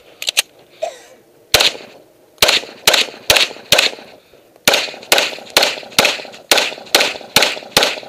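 Rapid pistol fire from an Open Division race gun with a red-dot sight: about thirteen shots starting about a second and a half in, roughly two a second, with short pauses between target groups. Light handling clicks come before the first shot as the pistol is taken up from the table.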